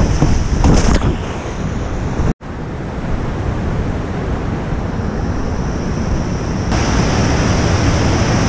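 Rushing whitewater of river rapids in high spring flow, a steady loud wash of water noise. It drops out for an instant about a third of the way in, then picks up again and turns brighter near the end.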